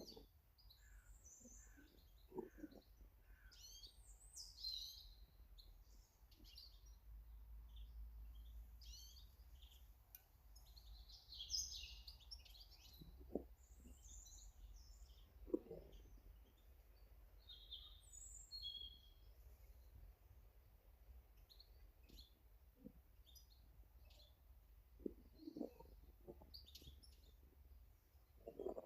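Small garden birds chirping and calling in short, scattered notes, with a few soft taps and knocks now and then.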